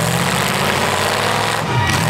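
V8 engines of demolition derby cars running, with a steady drone and a brief dip and recovery in revs near the end.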